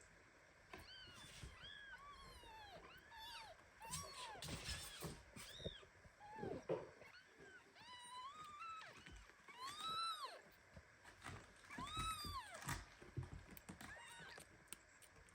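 Newborn kittens mewing: a run of short, thin, high cries that rise and fall, with two longer, louder cries in the second half.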